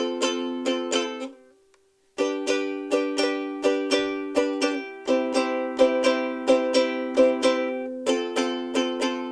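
Martin S-1 soprano ukulele strummed in a steady rhythm of chords. The strumming stops for under a second about a second and a half in, then resumes, changing chords a couple of times.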